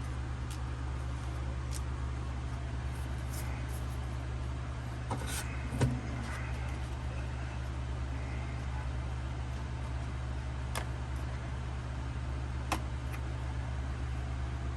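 Steady low hum with a few faint, short clicks of trading cards being handled, about five, six, eleven and thirteen seconds in.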